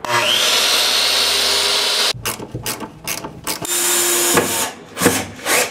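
Tools at work: a loud steady rushing noise for about two seconds, then a run of quick mechanical clicks, with two shorter bursts of the rushing noise between further clicks.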